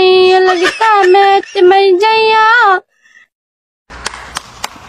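A high singing voice holds a sung melody for almost three seconds and cuts off abruptly. After a second of silence, slow clapping starts, about four claps a second over a faint hiss.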